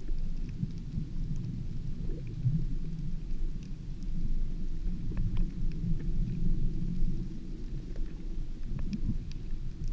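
Underwater ambience heard through a GoPro's waterproof housing: a steady low rumble of moving water, with a few faint scattered clicks.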